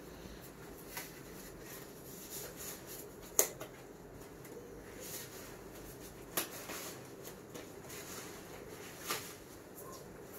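Blue exam gloves being pulled on over the cuffs of a protective coverall: faint rustling with a few sharp snaps, the loudest about three and a half seconds in.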